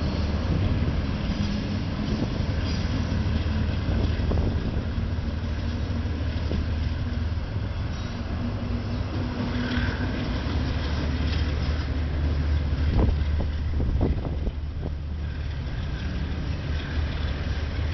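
Steady low rumble of a slowly moving vehicle, heard from on board, with a few short knocks about two-thirds of the way through.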